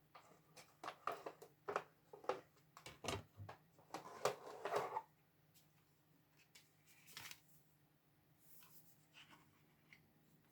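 Faint clicks, taps and rustles of card and a cutting die being handled and laid in place, busy for the first five seconds, then only a few scattered sounds.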